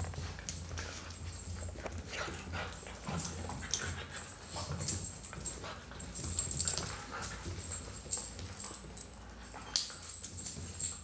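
Two young beagles play-fighting on a tile floor: scuffling and clicking claws, with the dogs' own play noises.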